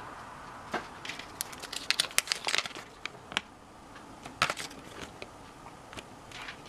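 Paper crinkling and light plastic clicks from handling an opened Kinder Surprise capsule and unfolding its folded paper leaflet: a flurry about two seconds in, and a few more clicks just past four seconds.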